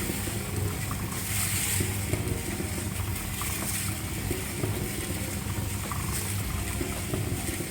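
Stingray CM90 stainless steel food-grade drum mixer running: a steady motor hum under the hiss of a dry load of cracked corn, pool salt, rolled barley and sunflower seeds tumbling in the rotating bowl, the hiss swelling and fading in a slow rhythm.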